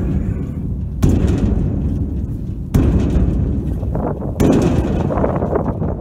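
A large metal diesel tank struck like a drum: three booming hits about a second and a half apart, each ringing on in a low rumble.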